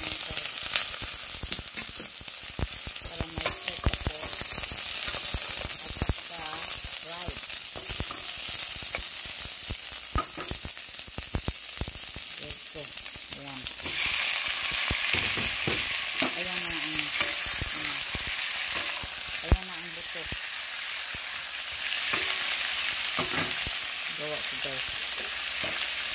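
Garlic, onion and raw chicken thigh pieces sizzling in hot oil in a stainless steel pot, with short clicks and scrapes as they are stirred. The sizzle grows louder about halfway through as the raw chicken goes into the oil.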